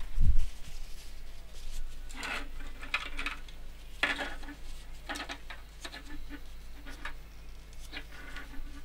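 A dull low thud just after the start, then short, irregular scrubbing rubs about once a second: tissue wiped over the femtocell's circuit board to clean off a blown, scorched power chip, with small plastic knocks as the board and its casing are handled.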